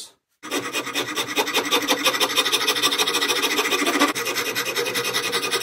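A rasp cutting a hickory axe handle in rapid, even strokes, about five a second, starting about half a second in. The corners of the squared handle are being taken down to an octagon.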